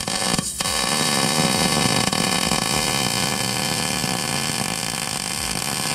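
MIG welding arc on the steel tube of a roll-cage anti-intrusion bar. It stutters with sharp crackles for about half a second as the arc settles, then runs as a steady, loud crackling hiss.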